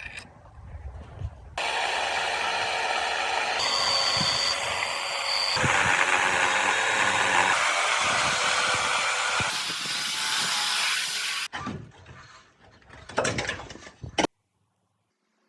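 Power tools running in short segments that change abruptly every few seconds, one with a high whine; then a few scattered knocks.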